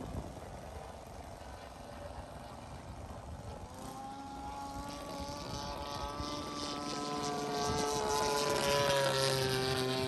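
Small propeller engine of an aircraft flying past: a buzzing engine tone that fades in about four seconds in, grows louder toward the end and dips slightly in pitch as it passes.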